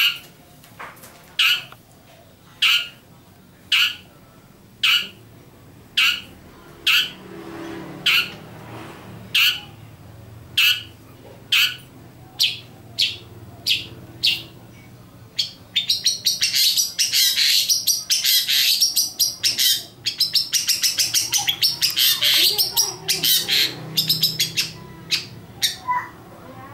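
Long-tailed shrike calling: short, sharp, high notes about once a second, coming faster after a while. About halfway through they break into a rapid run of many notes a second that lasts about ten seconds.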